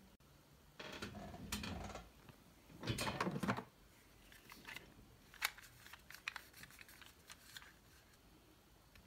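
Close-up handling sounds in a small room: two short rustling bursts, the second louder, followed by a scatter of light clicks and taps.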